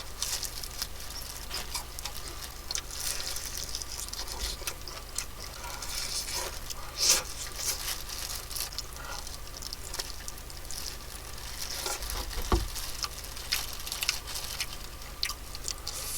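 Close-up crunching and chewing of crispy fried chicken: a steady run of small crackles and wet mouth sounds, with a couple of sharper crunches.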